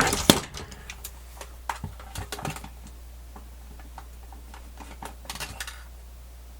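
Clicks and taps of a screwdriver being handled and fitted to the small screws of a plastic cassette Walkman case. The loudest clatter comes right at the start, then scattered clicks, and another short run of taps near the end.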